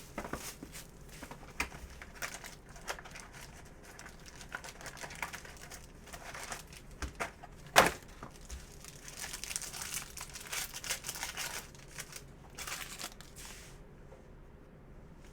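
Plastic wrapping crinkling and tearing as a sealed box of trading cards is unwrapped and its packs opened, in irregular rustles and small clicks. One sharp snap about 8 s in.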